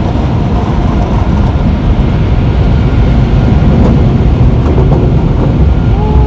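Automatic car wash heard from inside the car's cabin: water spray and the cloth wash strips striking the body and glass make a loud, steady rumbling rush.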